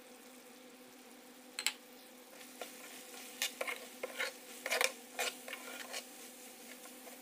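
A spoon stirring and scraping semolina being roasted in ghee in a metal pan, with irregular clicks and scrapes starting about two seconds in, over a faint steady hum.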